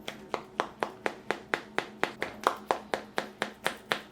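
Knife cutting through a baked chicken pie in its metal baking pan: a quick, even run of sharp clicks, about four a second.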